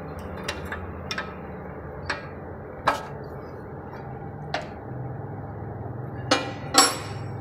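Steel spanner clinking on the tie-rod lock nut of a Toyota's front steering linkage as the nut is loosened for a toe adjustment. Scattered sharp metal clicks and clinks, with a louder one about three seconds in and two near the end.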